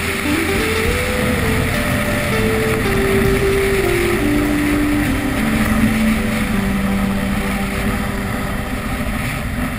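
Single-engine light aircraft (Alpi Pioneer 200XL) engine and propeller running steadily, heard from a wing-mounted camera with wind noise. Background music plays over it, a slow melody stepping down in pitch.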